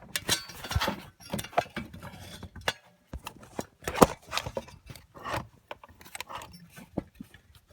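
Handling noise: irregular clicks, light metallic clinks and rustling as a camera and work light are shifted about, with one sharper knock about four seconds in.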